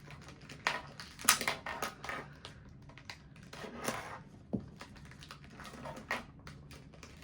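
Light plastic clicks and taps of a 2x2 Rubik's cube's pieces being handled and pressed back into place, irregular, with a few sharper clicks scattered through.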